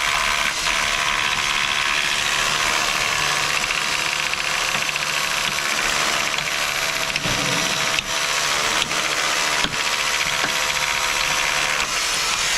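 A machine's motor running steadily, with a few sharp knocks over it.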